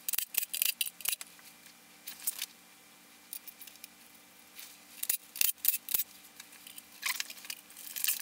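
Runs of quick, light metallic clicks and clinks, in bursts with short pauses, from hand tools and loose bolts as the oil pump and baffle bolts come out of the engine's bottom end.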